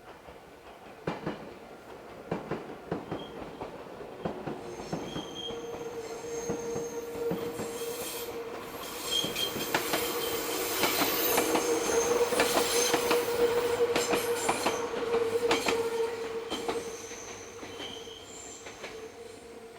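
Meitetsu train wheels squealing as the train rounds a sharp curve: a steady squeal tone with higher whistles coming and going, over rhythmic clicking of wheels on rail joints. It builds up, is loudest in the middle, and fades near the end.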